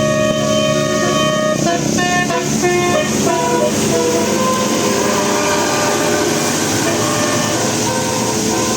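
Bus 'telolet basuri' multi-tone musical horn playing a quick tune of shifting notes. About four seconds in it gives way to a steadier noise with a few fainter held notes.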